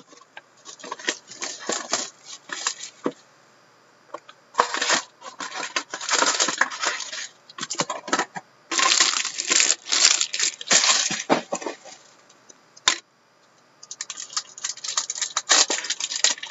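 Plastic shrink wrap and card pack wrappers crinkling and tearing as a sealed box of hockey cards is unwrapped and its packs pulled out and torn open. The sound comes in crackly bursts with a couple of short pauses.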